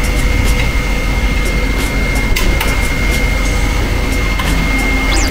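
Steady workshop machine hum with a constant high-pitched whine, with a few light clicks and knocks as metal tooling is handled.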